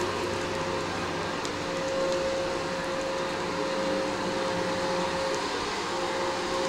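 A steady mechanical whir with one constant hum running through it.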